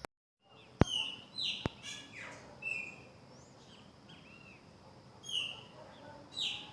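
Birds chirping with short, repeated calls, some rising and falling in pitch. Two sharp clicks come in the first two seconds.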